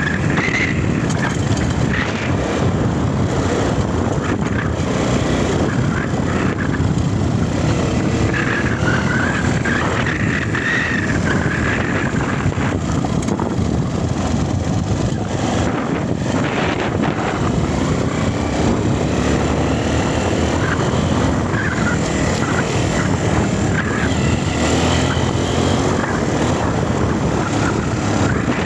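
Dirt bike engine running as the bike is ridden, a steady, dense noise with its pitch rising and falling slightly now and then.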